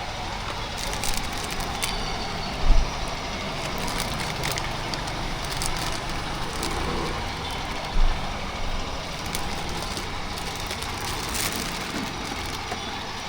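Steady street traffic noise, a continuous rush of passing vehicles, with two brief low thumps partway through.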